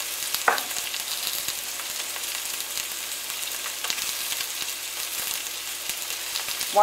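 Sliced onions sizzling in a little hot oil in a frying pan: a steady hiss with fine crackling, and a brief click about half a second in.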